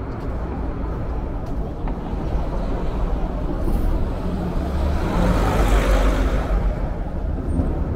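City street traffic: a steady hum of engines and tyres. A motor vehicle passes close, growing louder to a peak about two-thirds of the way in, then fading.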